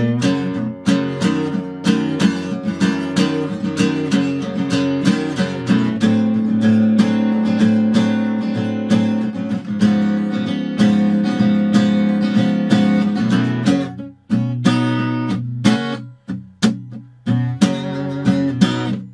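Acoustic guitar strummed in a steady rhythm, the chords ringing between strokes. About fourteen seconds in, the playing thins to separate strokes with short gaps.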